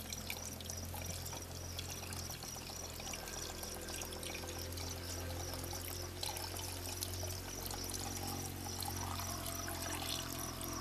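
Water pouring steadily from a plastic bottle into a motorcycle's radiator filler neck, topping up the coolant, over a constant low hum.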